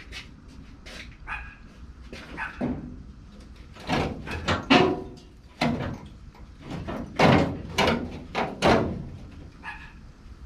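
A dog barking in a string of short barks, loudest in the middle and latter part.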